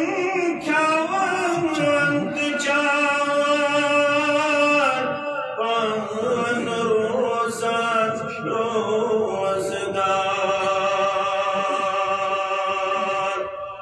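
A man chanting a devotional naat in long, drawn-out sung notes into microphones, with a wavering pitch. The last note is held steadily for several seconds before breaking off near the end.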